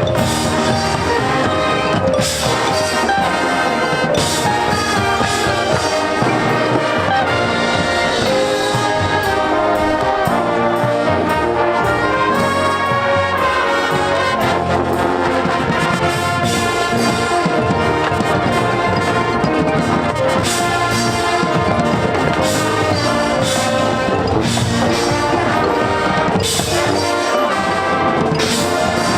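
High school marching band playing loudly, the brass section carrying the tune over steady percussion strikes.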